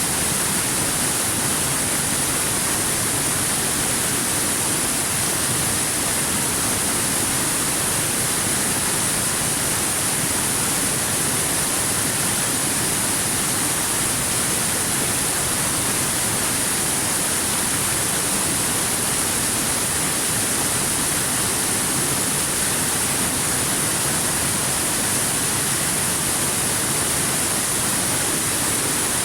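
Waterfall: falling water rushing steadily and evenly, with a bright hiss on top.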